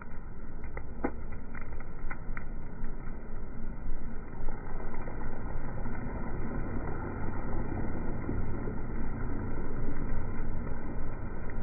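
Rain falling into a puddle: a steady, dull rushing noise, with a few sharp drop taps in the first couple of seconds.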